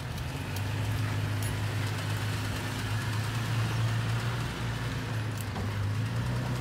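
Toyota Tacoma pickup's engine running steadily at low revs as the truck crawls slowly over loose sand and rock.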